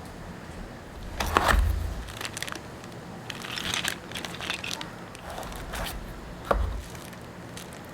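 Packaging being handled during an unboxing: crinkling and rustling, with a thump about a second in and a shorter knock near the end as things are set down on the table.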